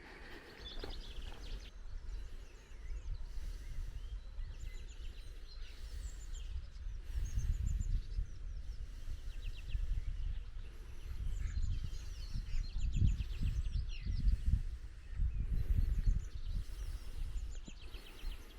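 Songbirds singing repeated quick trills, over a low gusting rumble that swells and fades and grows louder in the second half.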